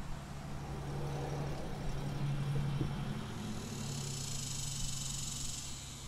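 Road traffic: a vehicle passes with a steady low engine hum. Cicadas buzz in a high drone that comes in at about three and a half seconds and stops near the end.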